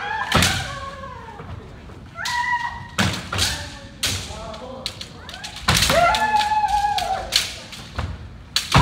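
Kendo sparring: repeated sharp kiai shouts over the clack of bamboo shinai striking and the thud of stamping footwork on a wooden dojo floor. The longest shout comes about six seconds in.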